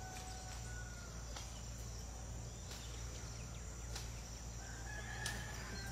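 Faint outdoor background with a distant rooster crowing twice, once near the start and once near the end.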